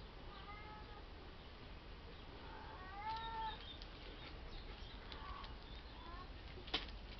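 A cat meowing about four times, the loudest and longest meow about three seconds in. A sharp click near the end.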